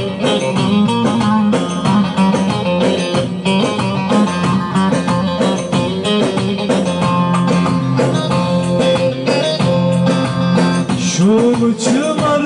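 Bağlama (long-necked Turkish saz) playing a plucked instrumental passage of a Turkish folk song, with the singer's voice coming in near the end.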